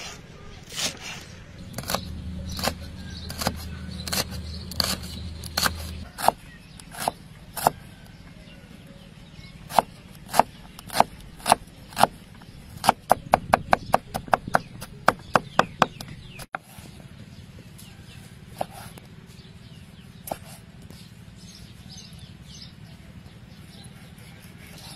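Kitchen knife chopping through vegetables onto a wooden chopping block: single sharp chops about every half second to a second, then a quick run of about four or five a second, then only an occasional tap.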